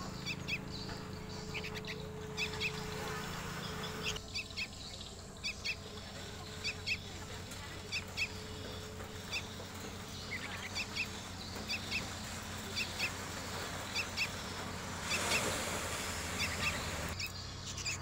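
Young sooty-headed bulbuls calling: a run of short, high chirps, mostly in quick pairs, repeated every second or so. There is a brief rush of noise a couple of seconds before the end.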